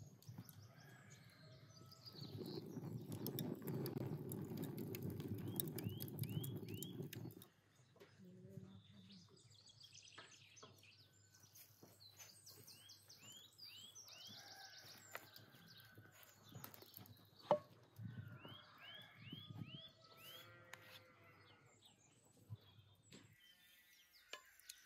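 Small birds chirping in short runs of quick curved calls that recur throughout, with scattered small clicks and knocks. For several seconds near the start, a louder low rushing noise rises over them and then cuts off suddenly.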